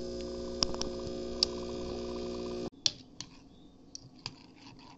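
Espresso machine's pump humming steadily while a shot pours, with a few sharp clicks; the hum cuts off abruptly about two and a half seconds in. Then faint clinks of a metal spoon stirring in a ceramic cup.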